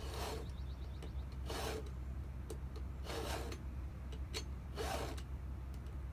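Hand file strokes on a chainsaw chain: a two-in-one file guide with a round file sharpening the cutter while a flat file takes down the raker. Four rasping strokes about a second and a half apart.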